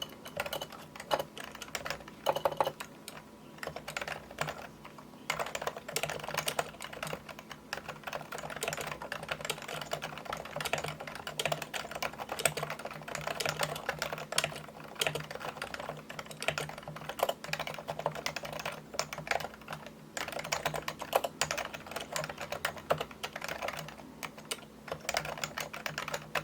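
Typing on a computer keyboard, a rapid stream of key clicks with a short lull about four seconds in.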